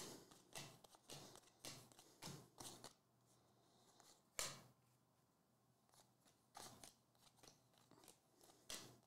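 Faint swishes and clicks of baseball trading cards being slid one by one off a stack held in the hand, roughly every half second, with a short pause about three seconds in and one louder snap about four and a half seconds in.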